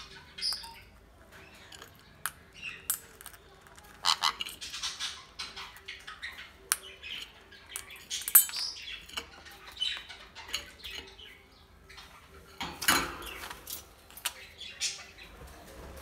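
A conure eating pellets from a stainless steel bowl: scattered clicks and knocks of its beak and the food against the metal, the sharpest about eight seconds in and near thirteen seconds, with a few short harsh squawks.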